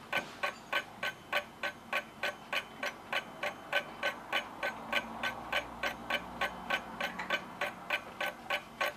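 A clock ticking fast and evenly, about four ticks a second.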